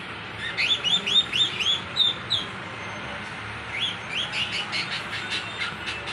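Lutino cockatiels chirping: two runs of quick, short chirps that rise then fall, about four a second, the first starting about half a second in and the second near four seconds in.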